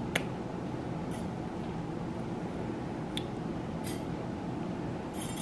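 Steady low hum of room tone, with a few brief, faint clicks and ticks scattered through it.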